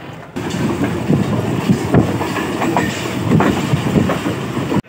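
Passenger train running along the line, heard from inside the coach: a loud steady rumble of the wheels with irregular clacks as they pass over rail joints. It starts suddenly about a third of a second in and cuts off abruptly near the end.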